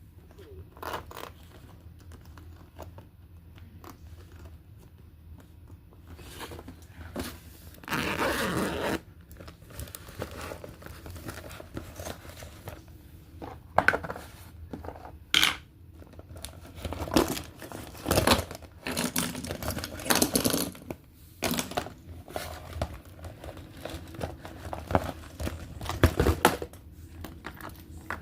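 Plastic fidget toys being handled: irregular rustling and crinkling with scattered sharp clicks and taps. A louder rustle lasts about a second around eight seconds in, and the handling grows busier in the second half.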